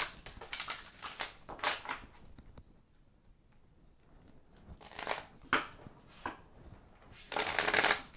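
An oracle card deck being shuffled by hand: short bursts of card-on-card swishing and rustling, with a lull in the middle and the longest, loudest burst near the end.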